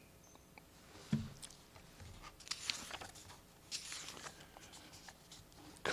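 Soft rustling of paper pages being turned, with a few faint clicks and crinkles.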